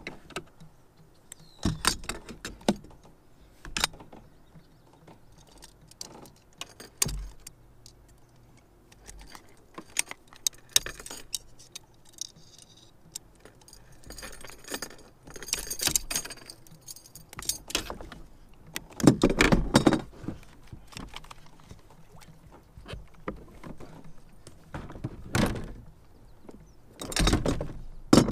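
Metallic jangling and clicking of pliers and a spinner lure while a hook is worked out of a northern pike's mouth, with a few louder knocks and thumps scattered through.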